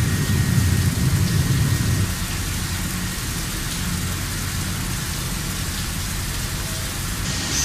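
WFL M60 CNC lathe machining a threaded workpiece under flood coolant: a steady, rain-like hiss of coolant spray over machine noise, with a heavy low rumble that drops away about two seconds in. A thin high tone comes in just before the end.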